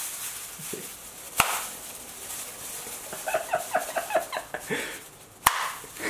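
Two sharp finger snaps inside a plastic bag filled with Halon gas, about four seconds apart, the second the louder. A run of about ten short, quick sounds comes between them. The snaps are loud and low in pitch, because sound travels more slowly in the heavy gas.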